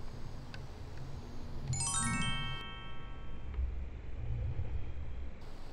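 A quick run of bright, bell-like chime tones, like a glockenspiel sweep, about two seconds in, ringing on for a second or so over a low rumble.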